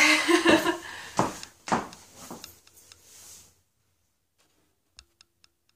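Heeled footsteps on a hardwood floor coming closer, with a short wordless vocal sound at the start; the sound then cuts off abruptly about three and a half seconds in, leaving only a few faint clicks near the end.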